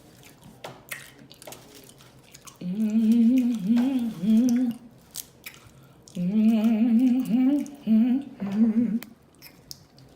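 A woman humming a gospel tune with her mouth closed, in two wavering phrases of two to three seconds each. Faint mouth and chewing clicks come between them.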